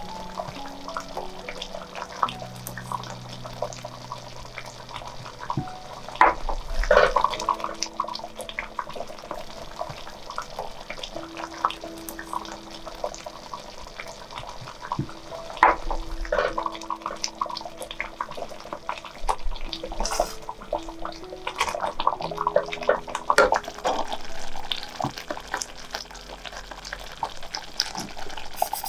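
Thick curry bubbling in a pot and being stirred with a wooden spoon: wet, sloppy liquid sounds with sharper clicks and pops, louder in a few bursts. Soft sustained background music notes play underneath.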